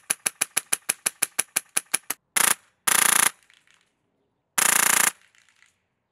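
Polarstar HPA-powered airsoft rifle firing: a quick string of single sharp shots, about seven a second for two seconds, then three short automatic bursts, each a rapid run of shots under a second long.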